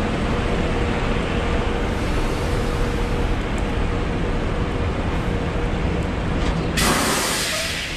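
Semi truck diesel engine idling, a steady rumble with a thin steady hum over it. Near the end a loud hiss lasts about a second.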